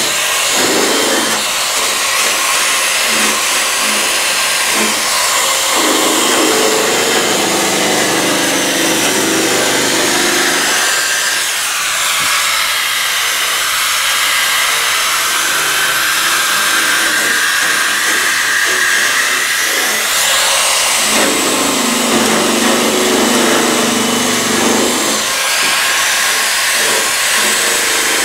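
Corded handheld rotary tool with a small wire brush wheel running continuously, scrubbing rust off a truck bed rail. Its whine rises and falls in pitch as the brush bears on the metal and eases off.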